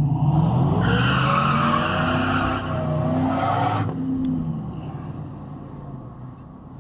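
A car engine revving hard under full acceleration from a standstill, heard from inside the cabin, its pitch rising. A tyre screech runs through the first few seconds and cuts off suddenly about four seconds in, then the engine settles to a quieter steady drone.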